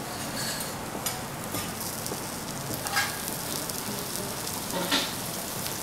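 Food sizzling on a steel teppanyaki griddle: a steady hiss with a few sharper crackles, the loudest about three and five seconds in.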